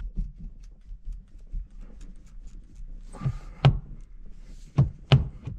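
Stock steering wheel of a 6th-gen Chevrolet Camaro being rocked and tugged off its splined steering column, with a few sharp knocks in the second half as it jars loose.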